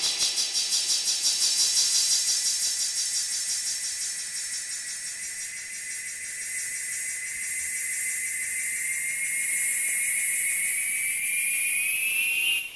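Electronic hissing effect closing a salsa record: a high hiss pulsing rapidly, about five times a second, that fades and then swells again. Under it a thin steady tone slowly rises in pitch toward the end, then everything cuts off abruptly.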